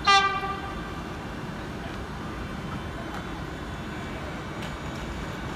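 A single short horn blast from an approaching locomotive, loud and sharp at first and fading within about half a second, followed by a steady low background rumble.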